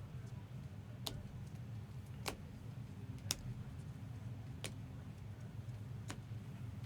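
Five sharp, short clicks at uneven intervals of about a second, over a steady low hum. The clicks are typical of trading cards and plastic card cases being handled and set down on a table.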